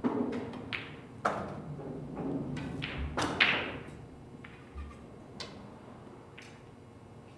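Pool balls: a sharp cue-tip click on the cue ball, then a series of hard ball clacks and knocks as the object ball is struck and pocketed and the balls run off the cushions, the loudest about three and a half seconds in. A few lighter taps follow near the end.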